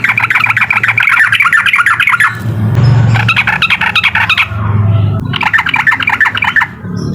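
Yellow-vented bulbul (trucukan) giving its fast, rattling 'uklik' call in three bursts: a long one of about two seconds, then two shorter ones about a second apart.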